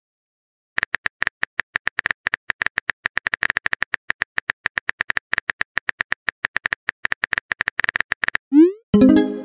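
Rapid clicks of phone keyboard typing sound effects, one per typed character, for about seven seconds. Near the end a short rising swoosh and brief chime mark the message being sent.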